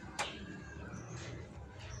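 Small birds chirping, short quick falling chirps about a second in and near the end, over a low hum, with one sharp click just after the start.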